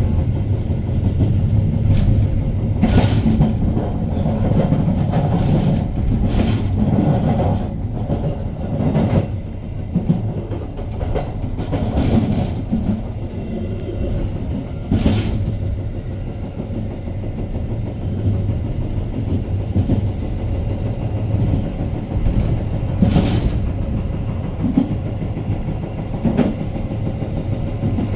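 The Argo Bromo Anggrek express train's coach running at speed on the rails: a steady low rumble broken by irregular sharp clacks and clatters from the wheels and track, heard from inside the coach.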